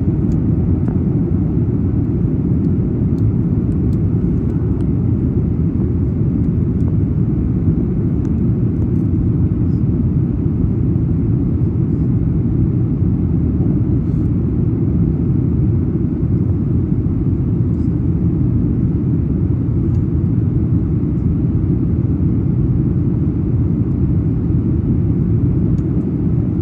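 Steady low rumble of cabin noise inside a Boeing 737 MAX-9 airliner in flight, heard from a window seat over the wing.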